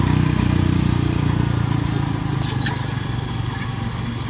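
Motorcycle engine running steadily, easing off in the second half, with a couple of short high squeaks a little over halfway through.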